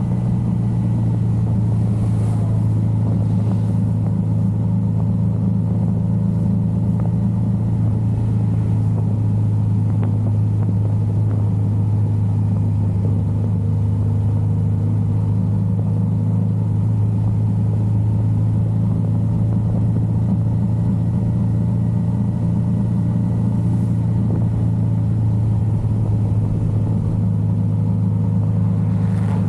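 Yamaha XSR900's inline three-cylinder engine running at a steady engine speed, held at one even pitch with no revving or gear changes.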